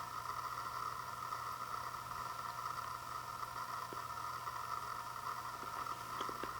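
Steady background hum and hiss with no change in level, with a few faint small clicks about six seconds in.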